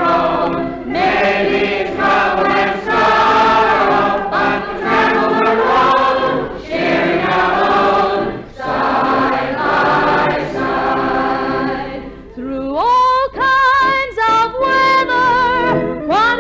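A group of singers in close harmony, no words clear. About twelve seconds in, a higher melody with wide vibrato and upward slides into its notes takes over.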